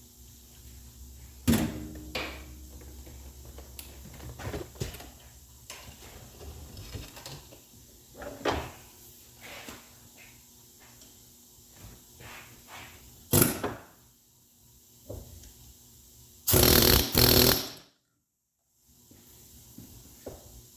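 Workshop clatter of metal tools and parts being handled: scattered knocks and clinks, with two sharp bangs. Near the end comes a loud noisy burst lasting about a second that cuts off abruptly.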